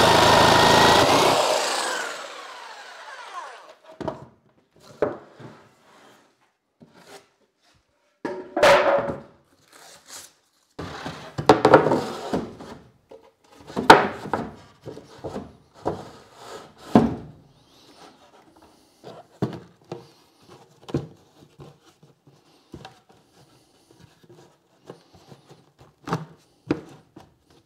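Jigsaw cutting through a plywood worktop for about two seconds, then winding down after the trigger is released. After that come scattered wooden knocks, thumps and rubbing as the cut-out plywood piece is lifted out and handled.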